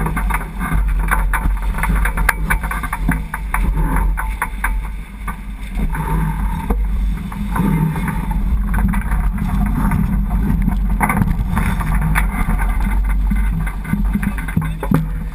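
Wind buffeting the boom-mounted GoPro's microphone as a J80 sailboat sails in a fresh breeze, giving a steady low rumble. Water rushes along the hull underneath, with scattered ticks and knocks through it.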